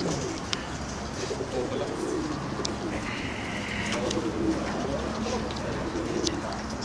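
Pigeons cooing repeatedly in their show cages, with a few short sharp clicks.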